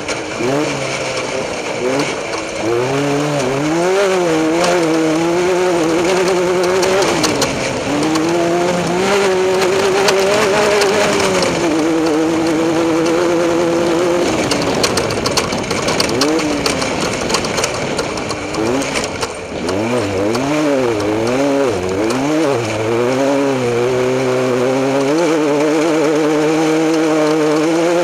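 Desert off-road race vehicle's engine running hard under way. Its pitch climbs and drops again and again as it is revved up and backed off over the terrain, with steadier stretches at speed, over loud wind and tyre noise.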